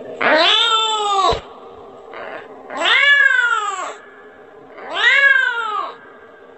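Kitten meowing for its mother: three long calls, each rising then falling in pitch, with short pauses between.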